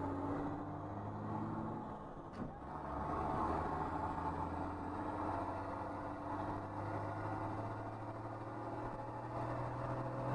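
School bus engine running under way, heard from inside the cab, its pitch climbing slightly near the end. A single sharp knock about two and a half seconds in.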